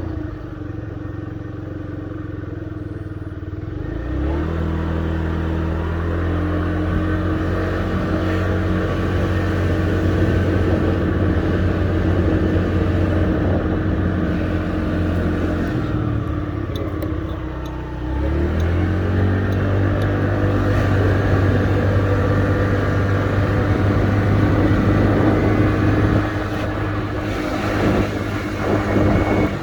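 Honda Dio AF62 scooter engine running, with its pitch rising as it is revved up about four seconds in and again a little past halfway, after a short dip.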